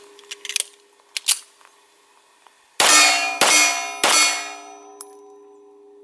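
A semi-automatic pistol fires one shot of a light reduced handload (2.5 grains of powder) about three seconds in, followed within a second by sharp metallic clangs and a fading ring from the steel plate target. The load is too light to lock the slide back. A few faint handling clicks come before the shot.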